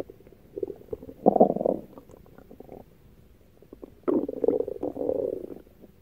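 Stomach growling: irregular gurgling rumbles with small pops between them. The loudest comes about a second in, and a longer one follows after about four seconds.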